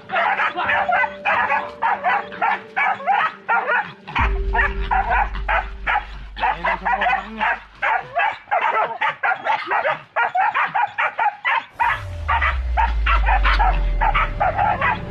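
Several hunting dogs barking and yipping rapidly and without pause, several barks a second, baying at a young wild boar piglet they are being trained on. A low rumble joins in twice, about four seconds in and again near the end.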